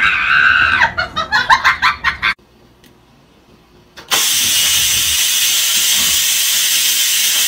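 An electric pressure rice cooker venting steam through its release valve with a loud, steady hiss that starts suddenly about four seconds in. Before it, a person laughing, then a short near-silent gap.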